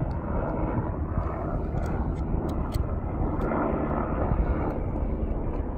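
Helicopter flying, a steady low drone of rotor and engine.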